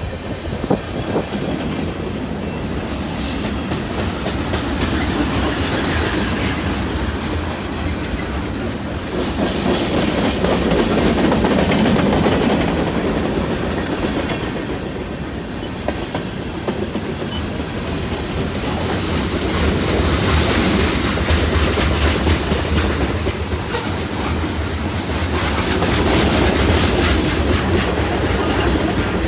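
Freight train rolling past at track speed: steel wheels clacking over rail joints in a continuous run of clicks over a steady rumble of rolling cars, swelling and easing several times as cars go by.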